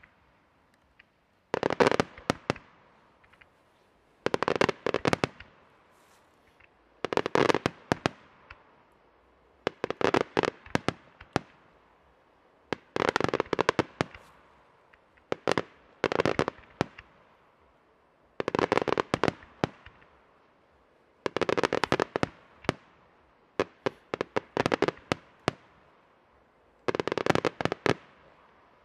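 Aerial fireworks bursting in volleys: a cluster of sharp, rapid cracks about every two and a half to three seconds, each cluster lasting about a second, with short quiet gaps between them.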